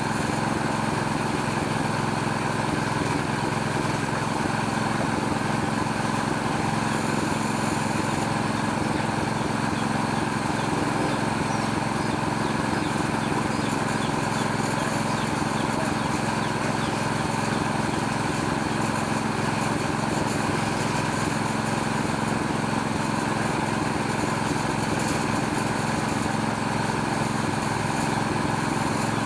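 Small Robin-brand petrol engine running steadily at constant speed, driving a homemade oil palm fruit stripping machine.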